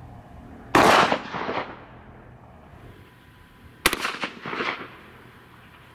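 A 12-gauge pump-action shotgun firing a sabot slug: a loud bang about a second in with an echoing tail. A second sharp bang with a shorter tail comes near four seconds in.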